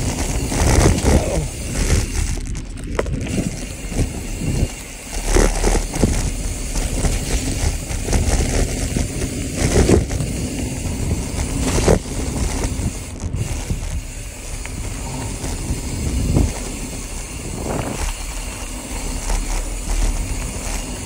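Mountain bike riding fast down a dirt singletrack: the tyres crunch over dirt, gravel and dry leaves, with a steady rumble and knocks and rattles as the bike hits bumps.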